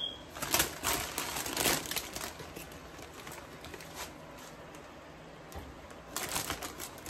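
Plastic bag of fresh spinach crinkling as handfuls of leaves are pulled out, in two bouts: one about half a second in lasting under two seconds, and another near the end.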